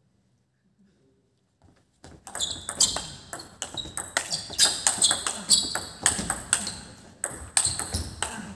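Table tennis rally: the ball clicking sharply off the bats and the table, about two hits a second. It starts about two seconds in, after a near-silent moment while the serve is set up.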